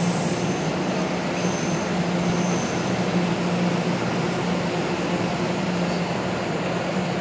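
Hyundai Rotem Série 2000 electric multiple unit standing at an underground platform with its doors open, giving a steady low hum over station noise. Three short high-pitched tones sound in the first three seconds.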